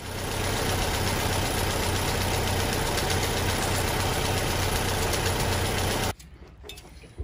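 Antique car engine idling steadily, then cutting off suddenly about six seconds in.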